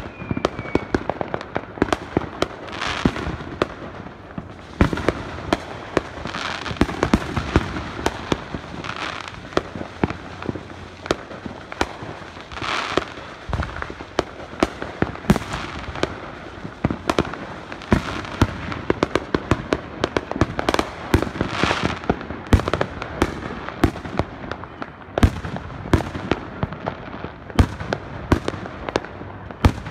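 Fireworks going off: a dense, irregular run of sharp bangs and pops, several a second, with a brief whistle near the start.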